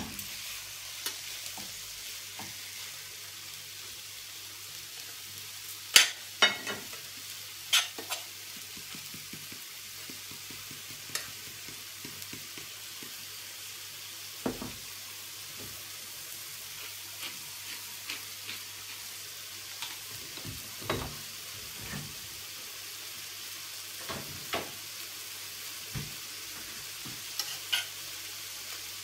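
Beef patties sizzling steadily in a frying pan, with sharp clinks of a metal spoon and fork against a stainless steel saucepan as a lettuce salad is tossed, louder about six and eight seconds in.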